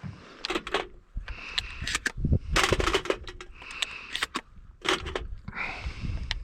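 Shotgun being reloaded by hand: a string of metallic clicks and knocks as shells go in, with rustling handling noise between them.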